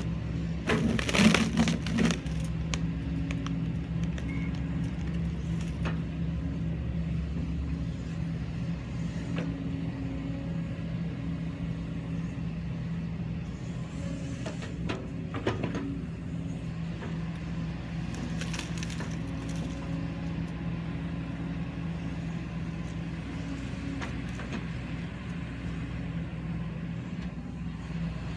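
Kobelco SK140-8 excavator's diesel engine running steadily while wood cracks and splinters as a tree is pushed over, loudest about a second in. More cracking comes around the middle.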